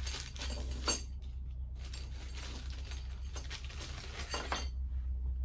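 Small hard parts clinking and rattling as they are handled and unpacked, in two stretches of dense clicking, over a steady low hum.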